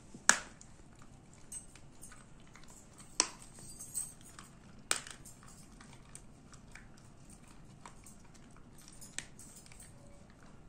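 A saluki chewing a bone: sharp cracks of teeth on bone, four loud ones in the first five seconds, with fainter gnawing clicks between and after.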